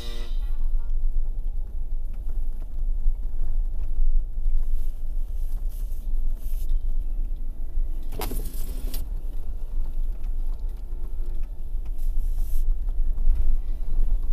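Low, steady rumble of a 4x4 driving slowly over a snowy, rocky track, heard inside the cabin. A brief clatter about eight seconds in.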